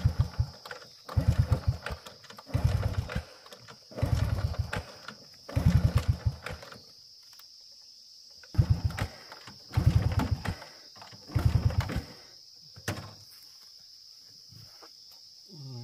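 Honda Wave step-through motorcycle being kick-started again and again, about eight kicks, each spinning its single-cylinder four-stroke engine over in a short fast chug that dies away without the engine catching. There is a pause midway and a single click near the end.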